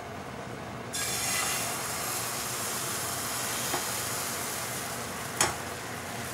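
Beaten egg ladled into a hot, oiled non-stick frying pan starts sizzling about a second in and keeps up an even sizzle as it spreads. A single sharp knock comes near the end.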